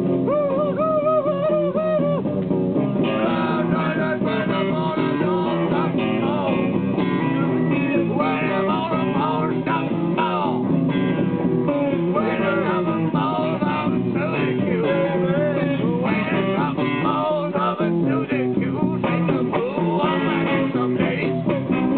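An improvised guitar jam: guitars strummed and picked in a bluesy groove, with a voice singing over them.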